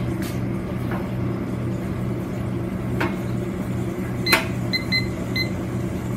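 Buttons of a digital kitchen timer being pressed: a sharp click, then four short high beeps in the second half as the timer is set. Under it runs a steady low kitchen hum.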